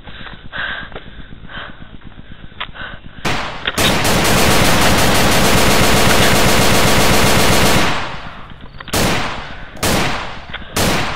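Machine-gun sound effect: a loud, fast burst lasting about four and a half seconds, starting about three seconds in. It is followed by a string of separate gunshots roughly once a second. Before the burst, muffled thumps and rustling from the handheld camera's own microphone.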